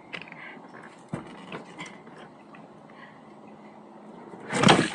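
A loaded plastic kayak being hauled over a fallen tree trunk in a river: a few scattered knocks and scrapes of the hull, then a loud bump and splash of water near the end.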